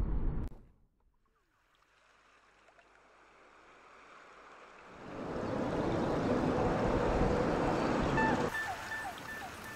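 Rushing water, like surf on a shore. It fades in from near silence, swells about five seconds in, and eases off near the end.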